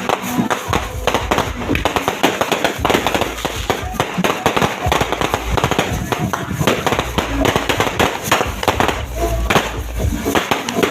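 Dense, unbroken barrage of fireworks and firecrackers: many overlapping bangs and crackles coming several times a second, with no let-up.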